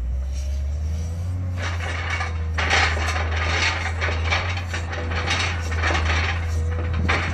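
Volvo L70F wheel loader's six-cylinder diesel running with a steady drone and a faint whine as it drives over a silage clamp, its silage fork and loader arms rattling. The rapid clattering starts about a second and a half in and grows dense a second later.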